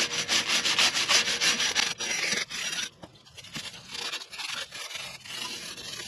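Wire brush scrubbing the wheel hub's rotor mating surface in quick back-and-forth strokes to clean it off. After about two seconds it gives way to quieter rubbing as the hub face is wiped.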